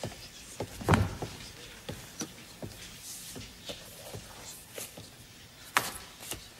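Paper and a book being handled: a soft thud about a second in, then scattered small clicks and rustles of pages, with one sharper click near the end.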